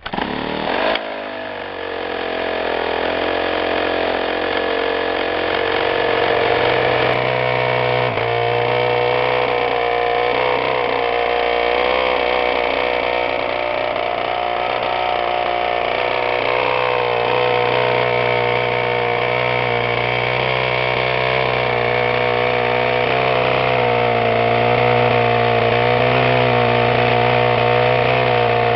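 CRRC GP 26R, a 26 cc two-stroke petrol model-aircraft engine, turning a wooden propeller. It is spun by an electric starter at the very start, catches and speeds up over the first couple of seconds, then runs steadily, picking up speed about 8 seconds in.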